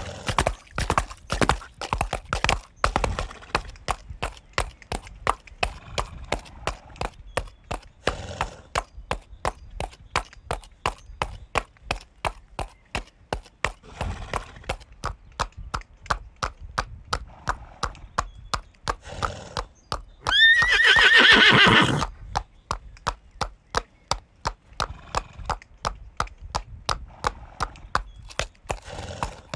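Horse hooves clip-clopping in an even rhythm, about four hoofbeats a second. A horse gives one loud, quavering whinny about twenty seconds in.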